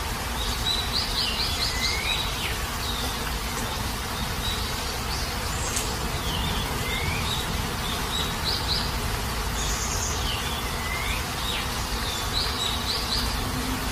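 Steady heavy rain. Over it a bird sings short phrases of quick chirps and falling whistles, repeated every few seconds.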